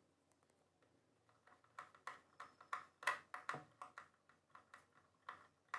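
Faint, irregular clicks and light taps from hand work on a home theater cabinet as its screws are driven back in to close it, starting about a second and a half in.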